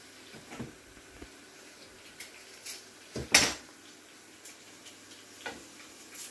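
A few scattered clinks and knocks of kitchen utensils and dishes being handled, the loudest one a little past the middle.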